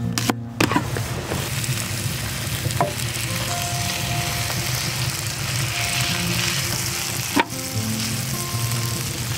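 Bacon with sliced shallots and garlic frying in a hot cast-iron skillet: a steady sizzle that starts about a second in, after a couple of knife chops on a wooden cutting board. There is a single sharp knock near the end.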